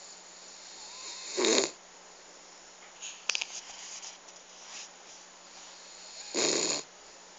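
Snoring: two loud snores about five seconds apart, each lasting about half a second, with quiet breathing between them.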